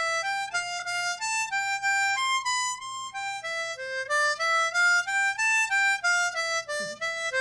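Solo harmonica played with cupped hands, picking out a quick melody of short, separate notes that step up and down.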